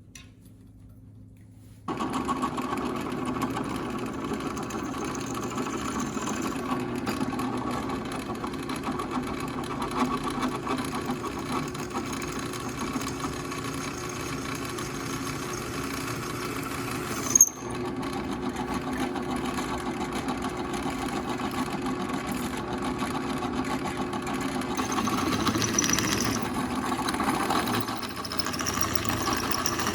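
A motor running steadily, starting abruptly about two seconds in, with one brief interruption and a sharp click a little past halfway.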